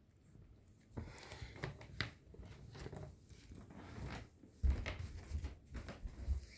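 Pomeranian puppy coughing in short, irregular fits, the heaviest coughs in the second half; a cough the breeder takes for a possible viral illness.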